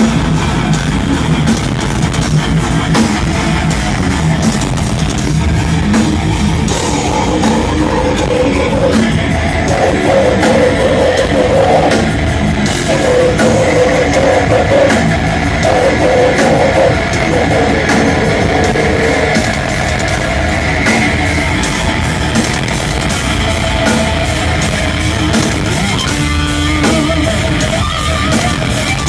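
Heavy metal music: distorted electric guitars over a drum kit, loud and unbroken.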